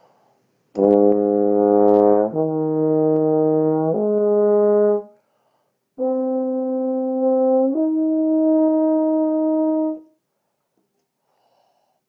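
Tuba playing a lip slur on first valve, in two slurred phrases with a short pause between: the first moves down a step and back up over three held notes, and the second steps up from one held note to a higher one. The notes change without tonguing.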